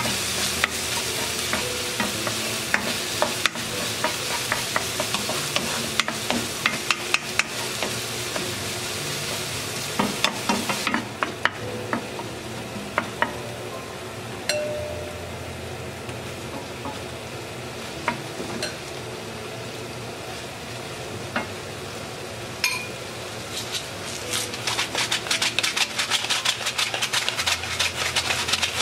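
Diced onion and red chili sizzling in oil in a nonstick frying pan, stirred with a wooden spatula that clicks and scrapes against the pan. The sizzle eases about eleven seconds in and grows louder again near the end, with rapid crackling.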